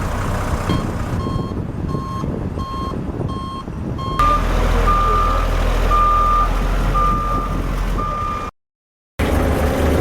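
Vehicle backup alarm beeping steadily, about one beep every half second or so. About four seconds in, a louder, slightly higher backup beeper takes over over a low engine rumble. The sound cuts out briefly near the end.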